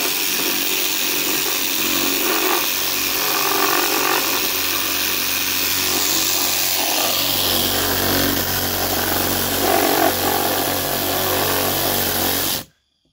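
DeWalt compact cordless reciprocating saw running steadily while cutting through a wooden board, stopping abruptly near the end.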